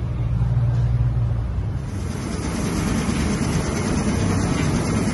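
XZ-7 electric meat cutting machine running: a steady motor hum, joined about two seconds in by a brighter whirring noise that holds.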